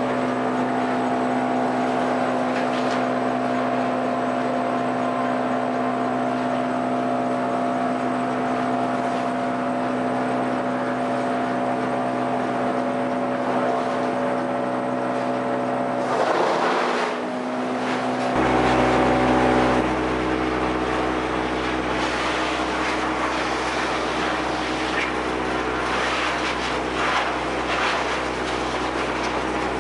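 Sawmill machinery running steadily with an engine-like hum. A little over halfway through there is a louder, noisier stretch, and after it a deeper low hum takes over.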